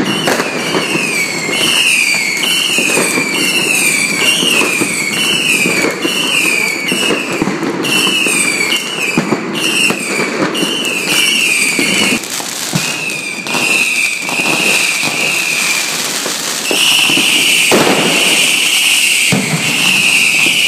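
Fireworks going off: a string of whistling shots, each a short falling whistle about once a second, over constant crackling and popping. Later come longer, steadier whistles, twice, each held a few seconds.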